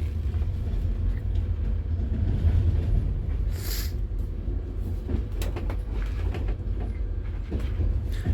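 Passenger train running, a steady low rumble with a few sharp clicks from the wheels and running gear. A short hiss about three and a half seconds in.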